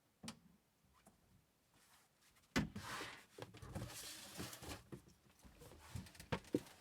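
Handling noise on a desk: a faint click, then after a couple of seconds of near silence a sharp knock followed by a run of light clunks and rustling.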